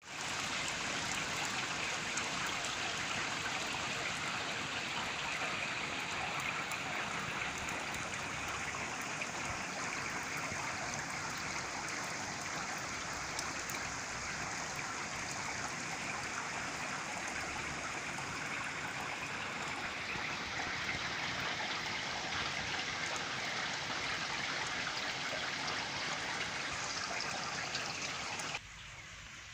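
Heavy thunderstorm rain pouring down in a steady, even hiss, which drops off sharply near the end.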